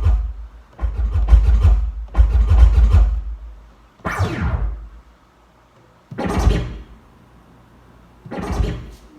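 JBL PartyBox 1000 speaker playing DJ Pad sound effects one after another: bass-heavy effects in the first three seconds, then three short separate effects with pauses between them.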